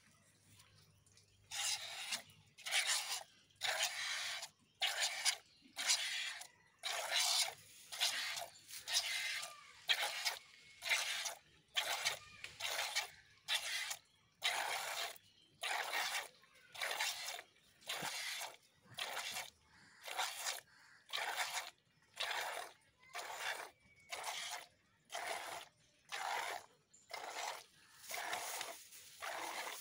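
Hand-milking a cow: jets of milk squirting into a plastic jug, in an even rhythm of about three squirts every two seconds, starting about a second and a half in.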